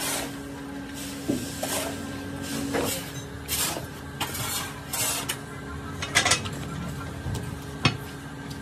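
Scattered metal clanks and knocks as steel sand-casting moulding flasks are handled and set down, with soft pats of a cloth bag dusting parting powder over a pattern. A steady low hum runs underneath.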